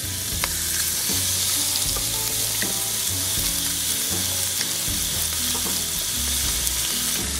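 Bluegill fillets frying in hot butter and oil on a high burner, a steady sizzle with a few faint clicks.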